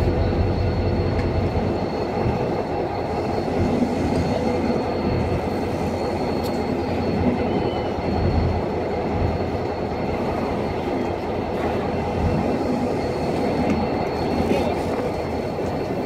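Diesel-hauled passenger coaches rolling past close by as the train pulls out, their wheels on the rails making a steady rumble.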